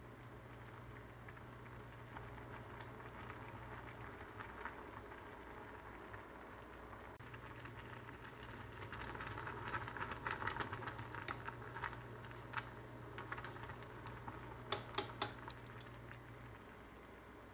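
A stainless steel pot of instant kalguksu noodles boiling on an induction cooktop while chopsticks stir the soup powder into the noodles. The stirring and bubbling grow louder in the middle, and a quick run of sharp clicks comes near the end.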